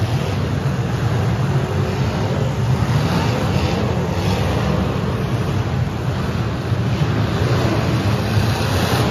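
Several full-size demolition derby cars' engines running and revving at once, a loud, steady mass of engine noise inside an indoor arena.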